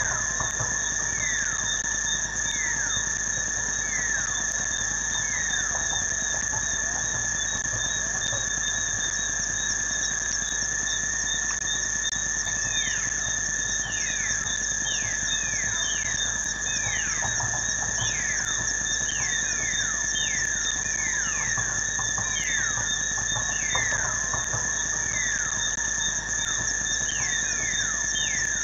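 Night ambience of steady, high-pitched insect trilling, with many short whistled calls that slide down in pitch. The calls are a few seconds apart at first and come thick and overlapping from about halfway through.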